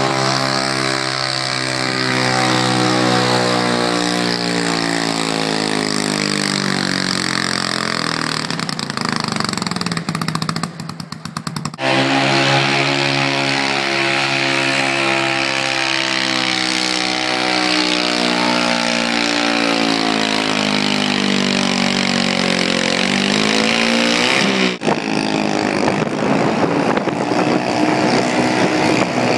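Super stock garden tractor engines running hard under load while pulling a sled. The pitch sinks slowly as each pull bogs down. The sound breaks off twice where one run cuts to the next.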